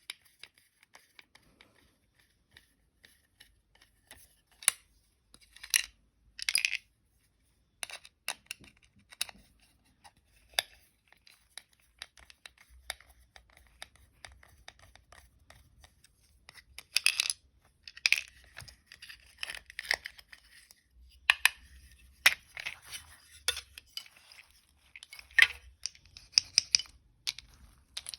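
Hands handling small plastic toy vehicle parts: irregular clicks and taps with short scraping, rustling bursts, sparse at first and busier in the second half.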